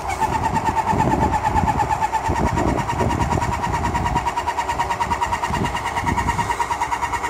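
Electric paint sprayer's pump motor switching on abruptly and running with a fast, even pulsing whine.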